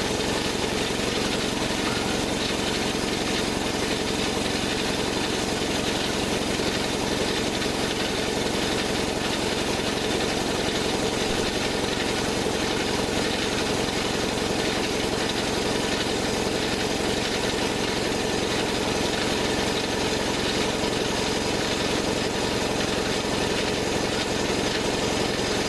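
Predator 212 single-cylinder engine running at a steady speed, driving the mini bike's rear wheel through its chain while the wheel spins off the ground.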